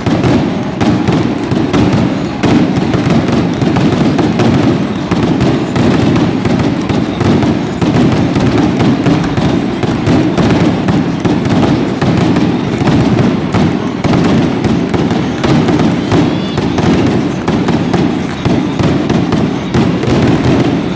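Fireworks going off in a loud, continuous barrage of rapid crackling bangs.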